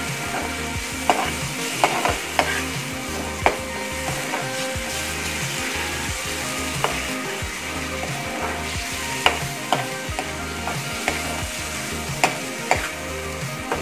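Spice paste sizzling as it fries in oil in a pan, stirred and scraped with a metal spoon, with sharp clacks of the spoon against the pan every second or two.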